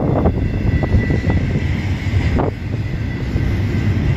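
BNSF double-stack container train rolling past close by: a loud, steady low rumble of the cars on the rails, with a thin steady high squeal over it.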